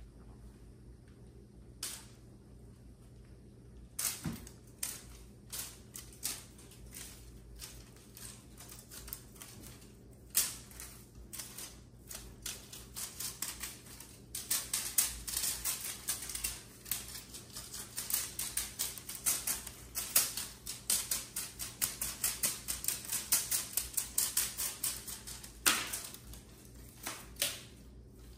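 Rapid, irregular clicking and tapping of cats' claws and paws on a hardwood floor as they scramble, pounce and land while chasing a toy. It starts sparsely a few seconds in, becomes a dense clatter through the middle, and ends with a louder knock before dying away.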